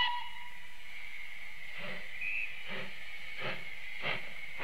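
Steam locomotive sound: a whistle that ends about a second in, then steady steam hiss. Exhaust chuffs begin about two seconds in and come closer together as the engine starts away.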